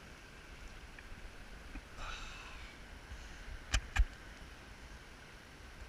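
A short sniff about two seconds in, then two sharp clicks a quarter second apart, the loudest sounds, over a faint steady hiss of flowing river water.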